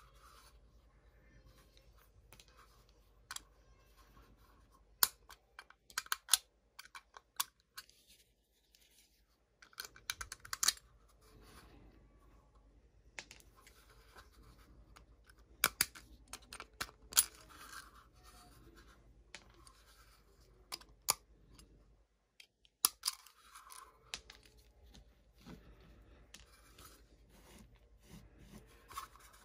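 Small, sharp clicks and snaps, scattered irregularly, as a utility knife blade picks and breaks tiny support pieces out of the screw holes of a 3D-printed plastic case, with light scraping of the blade on the plastic.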